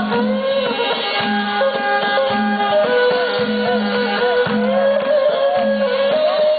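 Ruem Trot folk music: a bending melody over a steady low drone, with regular hand-drum strokes keeping the beat.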